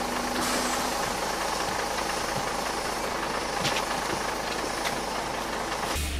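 Steady interior noise of a public-transport vehicle heard from a passenger seat: an even rumble and hiss of the ride, with a few faint clicks.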